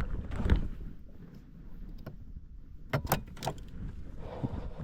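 Knocks and clatter from handling a freshly landed redfish and fishing gear, a few sharp ones about half a second in and a quick cluster about three seconds in, over a low wind rumble on the microphone.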